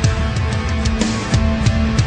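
Loud heavy metal music with distorted electric guitar and a steady drum beat.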